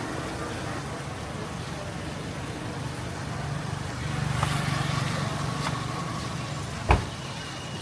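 A motor vehicle engine passing through steady street noise, swelling for a few seconds in the middle, with a single sharp knock near the end.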